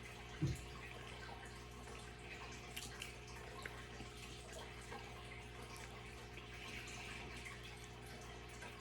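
Quiet room tone with a steady low electrical hum, a short low thump about half a second in, and a few faint ticks and clicks.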